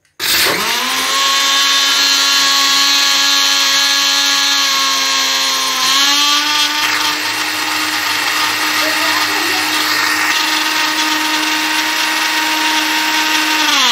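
Electric countertop jug blender starting up and running at a steady high speed, grinding soaked poppy seeds and almonds with sugar and milk. Its pitch steps slightly higher about six seconds in, and it winds down at the very end.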